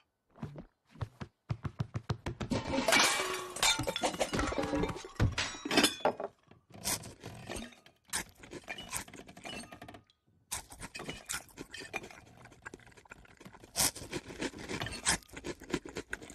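Animated-film sound effects of a heavy body clambering up wooden kitchen shelves: a long run of thumps, scrapes and clinking crockery. The clatter is densest a few seconds in, stops briefly about two-thirds of the way through, then goes on as scattered knocks and clinks.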